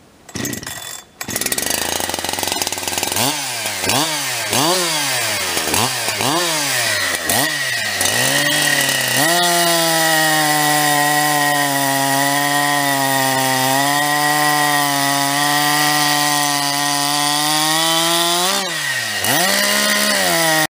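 Hot-started big-bore Husqvarna 372-type two-stroke chainsaw with a Huztl 52 mm top end and an open modified muffler. It catches, then the throttle is blipped about six times. It then holds steady high revs for around ten seconds while cutting into the end of a log, with a short dip and rise near the end.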